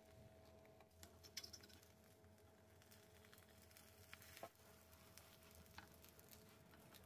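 Near silence with a faint steady hum, broken by a few light taps and scrapes of wooden spatulas on a nonstick pan as an egg roll is folded over, the clearest about a second and a half in and near the middle.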